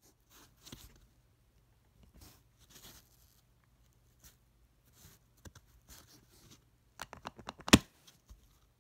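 Small plastic number wheels of a three-dial Verage luggage combination lock being turned with a fingertip: faint scratching and scattered light clicks, then a quick run of clicks near the end with one sharp, much louder click.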